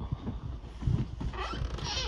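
Footsteps going down a flight of stairs: a run of quick, uneven thuds.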